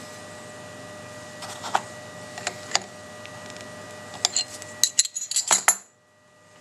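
Steel spanners clinking and tapping on an ER11 collet nut and the router spindle as a 4 mm end mill is tightened in: a few separate clinks about a second and a half in, then a quick run of louder clinks near the end. A steady electrical hum runs underneath.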